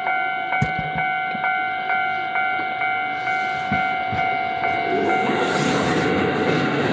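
Japanese level-crossing warning bell clanging about twice a second. From about five seconds in, the rushing noise of a JR commuter train passing over the crossing takes over as the bell stops.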